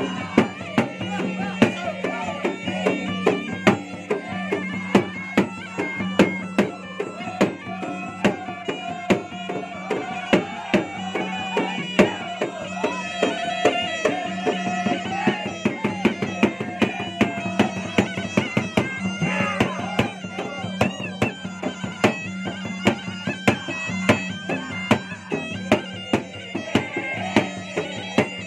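Makassar gendang, double-headed barrel drums beaten in fast, dense strokes, with a steady drone and a wavering reedy melody line over them.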